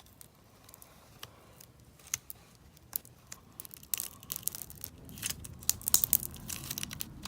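Hands handling things on a tabletop: scattered faint clicks, turning into denser crackling and ticking about halfway through.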